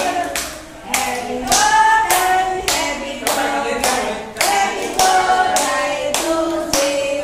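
A group of young children singing a song together while clapping along, about two claps a second.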